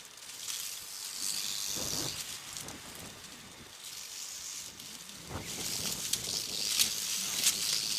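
Rattlesnake rattling its tail: a dry, high buzz that swells and fades, a warning from a snake reared up and ready to strike. A couple of dull knocks sound under it.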